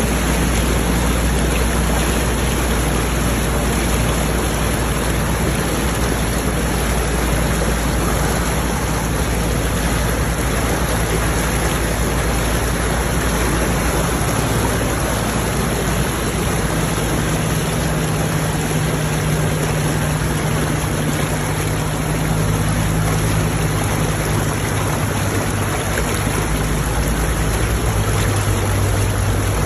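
Floodwater rushing and splashing continuously as a Land Rover Defender Td5 wades through it, the front wheel churning up a bow wave. Under the water noise runs the low drone of the Td5's five-cylinder turbodiesel, which shifts in pitch about halfway through and again near the end.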